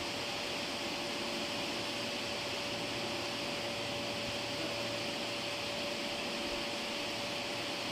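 Steady hiss of train-wash water jets spraying an electric train, with a steady whine underneath.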